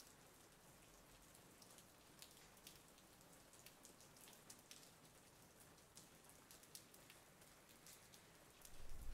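Near silence: faint room tone with a light hiss and scattered soft, irregular ticks.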